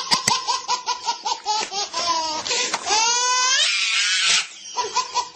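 A baby laughing hysterically in quick breathy bursts, about six a second. About three seconds in the laugh breaks into a high squeal that rises in pitch, followed by a breathy gasp, and then the quick bursts start again near the end.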